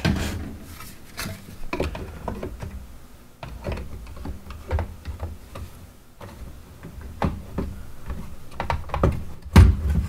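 The plastic shell of an iRobot Roomba 650 being worked down onto its chassis by hand: scattered light clicks and knocks of plastic on plastic with a low rubbing rumble, and one louder thump near the end.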